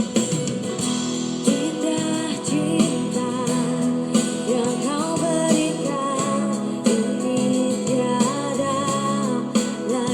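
Indonesian pop song playing: a woman's voice singing the melody over guitar-led band accompaniment.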